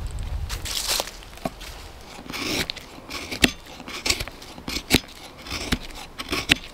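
A knife blade shaving thin curls off a stick of fatwood to make fire-lighting tinder: a series of short, crisp scraping strokes at an uneven pace of about one a second, some ending in a sharp tick. Wind rumbles on the microphone in the first second.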